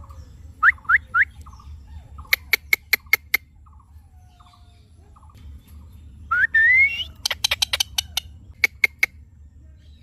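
Indian ringneck parakeets calling: three quick rising chirps, then bursts of short, sharp clicking chips, with a longer rising squawk about six seconds in.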